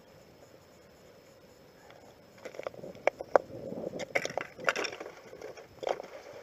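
Handling noises of gear and gloves on the ice: irregular sharp clicks, crackles and rustles starting about two and a half seconds in, with boots shifting on the icy surface.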